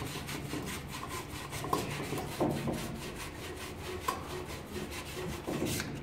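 A hand tool worked back and forth on a cut copper water pipe, making quick rhythmic rubbing strokes as the pipe end is cleaned up before a push-fit fitting goes on.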